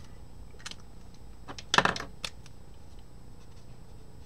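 Felt-tip markers being swapped: a few faint clicks, then a sharp cluster of clicks and knocks about two seconds in as a marker is capped and set down on the wooden desk and another is picked up and uncapped.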